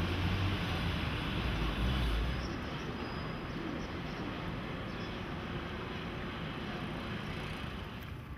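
Outdoor wind buffeting the microphone, with low rumbling that eases off about two and a half seconds in, over a steady wash of background noise.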